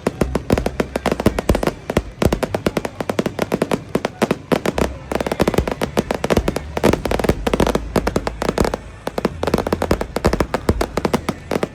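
Fireworks going off in a dense barrage of rapid bangs and crackles, many reports a second, typical of a display's finale.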